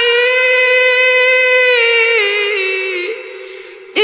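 A boy's Quran recitation in melodic tajweed style: one long held note, high and steady, then wavering downward and fading near the end. A new phrase starts sharply right at the end.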